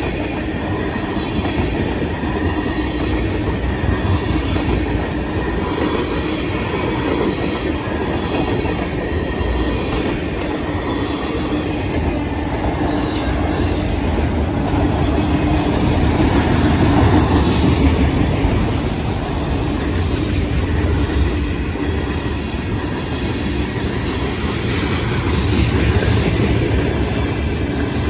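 Freight cars of a long manifest train (tank cars, autoracks and covered hoppers) rolling past: a continuous heavy noise of steel wheels on the rails, with a faint high wheel squeal.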